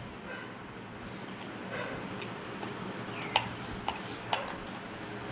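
A small screwdriver backing screws out of the plastic lid of a Ganesh pull-cord vegetable chopper: faint handling, then about four light clicks between three and five seconds in.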